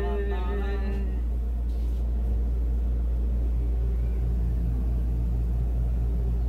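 Steady low rumble and hum inside a moving Ferris wheel gondola, even in level throughout. A voice-like sound trails off in the first second.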